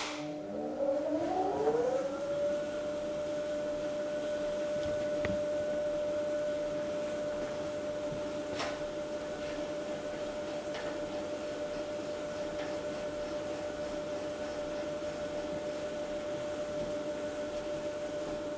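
Electric motor and gear drive of a shaper-mounted vertical lathe attachment starting up after a click: its whine rises in pitch over about two seconds, then holds steady as the 660 mm four-jaw chuck turns at about 96.5 RPM, driven by a 720 RPM motor.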